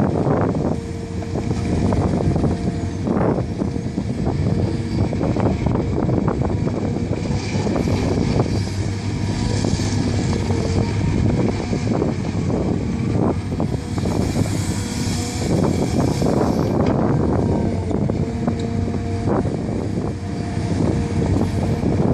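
Caterpillar 345B hydraulic excavator's diesel engine working hard under load as it digs and loads rock, with frequent knocks and clattering of stone against the steel bucket.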